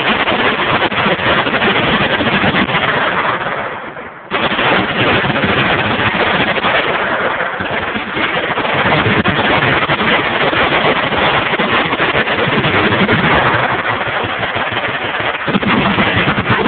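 Many machine guns firing at once, their rapid reports merging into a continuous loud din. It eases off briefly about four seconds in, then resumes abruptly at full force.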